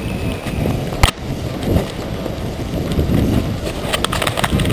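Running footfalls and wind buffeting a head-mounted camera's microphone. One sharp crack about a second in, and a quick string of clicks near the end.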